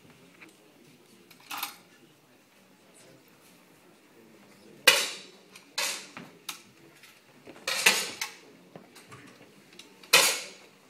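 Sharp metallic cracks from 10 m air rifles on an indoor running target range, about six at irregular intervals, each ringing briefly in the hall.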